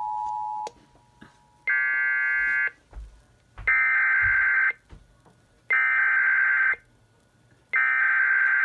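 Emergency Alert System data tones: a steady two-tone signal cuts off under a second in, then four buzzing bursts of digital code, each about a second long with a second's gap between them. This is the SAME header that opens an EAS severe thunderstorm warning.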